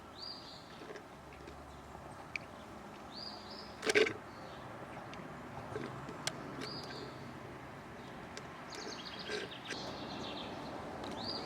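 Short high chirps, like a bird call, repeat about every three seconds over a faint outdoor hiss, with a single sharp knock about four seconds in.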